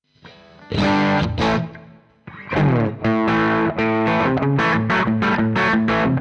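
Distorted electric guitar played through a Fractal Audio FM9 amp-modeller preset. A couple of ringing chord hits come first, then a steady run of chords at about three a second.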